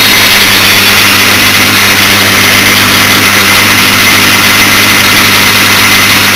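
A 1942 South Bend lathe running steadily while turning acetal plastic: a constant motor hum under an even hiss from the cut.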